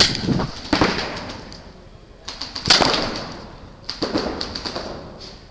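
Paintball markers firing: four sharp pops at uneven spacing, each fading over about a second, over a steady high-pitched hiss.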